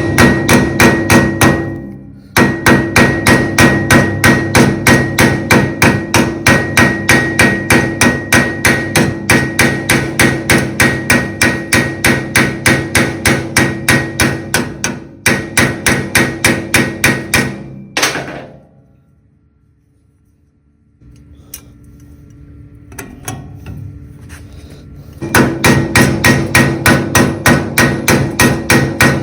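Hand hammer striking fast and evenly, about three blows a second with a metallic ring, setting and peening solid brass rivets on a steel coat rack. The hammering stops for a few seconds about two-thirds of the way through, then starts again near the end.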